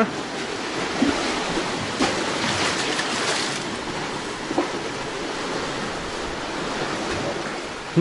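Sea surf washing over rocks and pier supports, a steady hiss that swells about three seconds in, with a few faint clicks.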